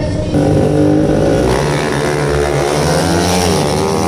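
A racing vehicle's engine revving on a drag-style strip. The pitch climbs about a second and a half in, wavers up and down, and climbs again near the end.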